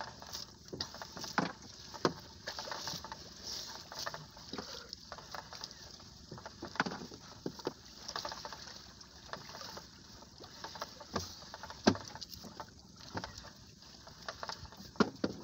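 Wet fishing net being hauled by hand over the side of an outrigger boat: water splashing and dripping off the mesh, with irregular knocks and clicks against the hull.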